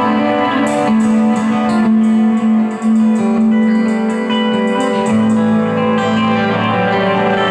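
Stratocaster-style electric guitar playing an electric blues line through an amplifier, with long held notes stepping from pitch to pitch; a lower note comes in about five seconds in.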